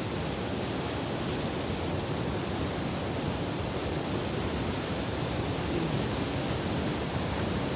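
Steady rush of running river water, an even roar with no breaks.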